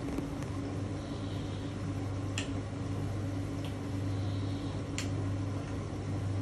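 Bosch Series 4 front-loading washing machine tumbling a heavy, water-soaked blanket during the wash, with a steady motor hum and water swishing in the drum. A sharp click comes twice, about two and a half seconds apart.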